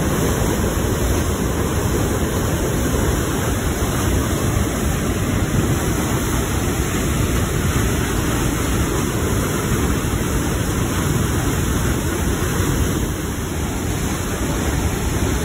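Whitewater rushing through a narrow rock canyon and over a waterfall, a steady, loud, even rush with a deep low end.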